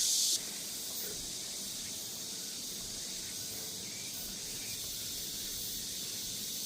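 Insects buzzing in the summer woods: a loud high buzz cuts off abruptly about half a second in, leaving a fainter steady high hiss.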